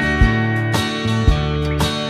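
Background music: a guitar-led instrumental with a steady beat about twice a second.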